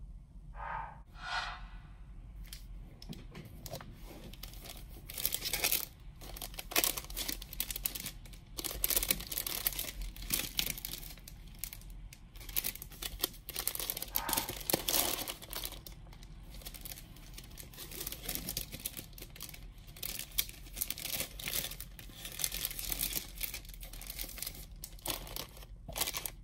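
Clear plastic cellophane packaging crinkling and rustling in irregular bursts as it is handled and unwrapped.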